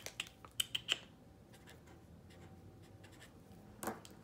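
A pen writing on a paper tracker sheet: a few short scratchy strokes in the first second, then quiet, with one more brief rustle near the end.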